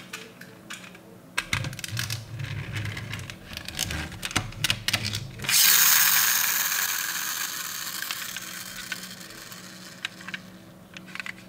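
Rapid mechanical clicking and whirring of a die-cast metal toy car's geared wheels for about four seconds, then a sudden loud hiss that fades away over the next few seconds. A few light clicks near the end.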